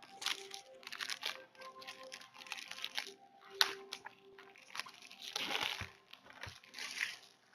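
Packaging crinkling and rustling as a boxed oracle card deck is opened by hand, in a run of short scrapes with one sharp click about three and a half seconds in. Soft background music plays underneath.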